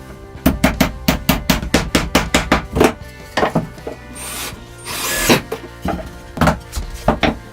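Quick series of sharp knocks of hand-tool work on wood, about five a second for the first few seconds, then a scraping rush about five seconds in and a few slower knocks, over background music.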